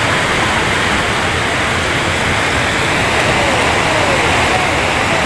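Steady rush of water with no break, with faint voices of the crowd underneath.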